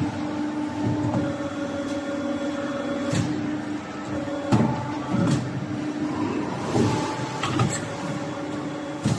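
CNC pipe bending machine running: a steady machine hum, with about half a dozen sharp clunks and knocks at uneven intervals as it moves.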